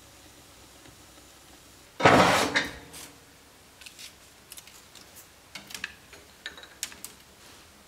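A loud clatter about two seconds in, then scattered light clicks and taps as hands work at a wood stove's open front just after its kindling is lit.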